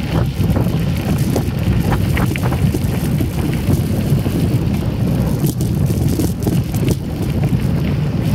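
Steady rumble of wind on the microphone and mountain bike tyres rolling over a gravel trail while riding, with a few short rattles and clicks from the bike.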